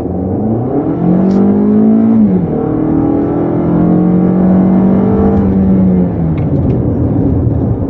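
Car engine accelerating, heard from inside the cabin over road noise. The engine note climbs, drops back at a gear change a little over two seconds in, then climbs again and holds steady before easing off near the end.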